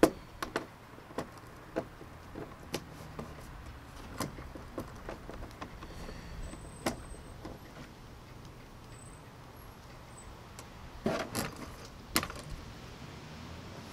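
A hand screwdriver driving bolts into a plastic kayak mount bracket, with scattered sharp clicks and knocks of metal on plastic. A denser clatter of small parts comes about eleven seconds in.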